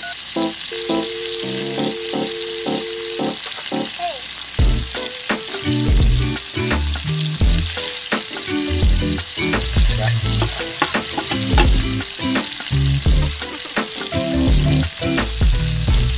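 Oil sizzling steadily in a wok as garlic, then onions and carrots, fry, with a spatula stirring through them. Background music with a bass line plays underneath.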